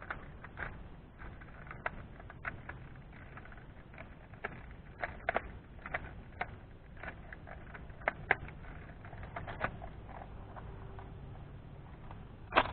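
Irregular light clicks and taps from a plastic Nerf blaster being handled.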